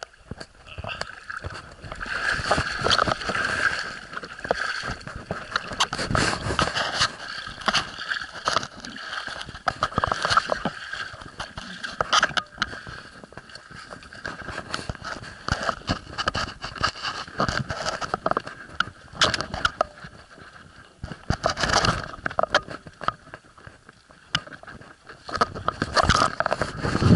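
Handling noise from a camera rubbing and knocking against a diver's neoprene gear: irregular scraping with many small clicks and knocks, loudest around two to three seconds in and again near the end.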